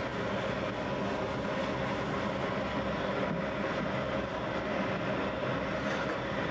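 Rotary bread oven running, its turning hearth carrying the loaves: a steady mechanical roar with a faint hum held in it.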